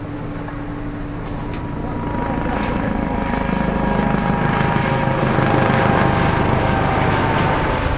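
Helicopter engine and rotor noise: a steady rumble with a turbine whine that grows louder over the second half.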